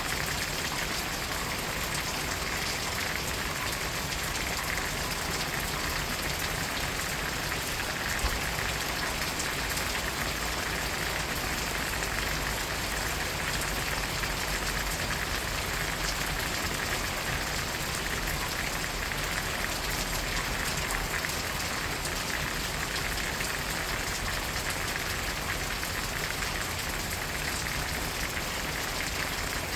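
Steady fine rain falling, an even patter of drops that holds unchanged throughout.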